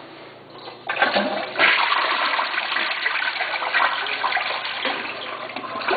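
American Standard toilet flushing. The flush starts about a second in and swells into a loud rush of water that runs on steadily.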